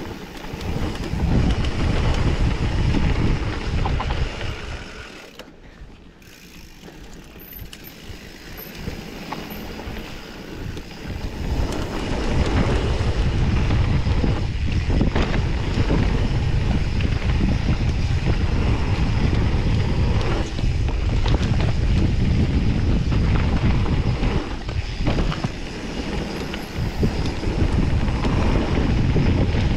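Wind buffeting the microphone of a camera on a mountain bike, mixed with tyres rolling over a packed dirt trail and knocks from bumps. It drops away for several seconds about five seconds in, then builds back up and stays loud as speed picks up.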